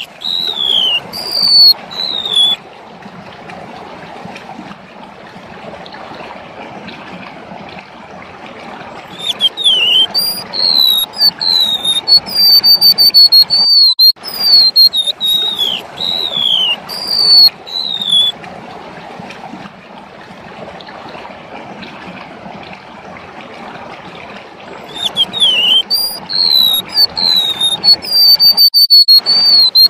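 Golden-bellied gerygone (remetuk laut) singing: runs of high, thin whistled notes that each slide downward, in phrases several seconds long separated by pauses. A steady background hiss fills the gaps.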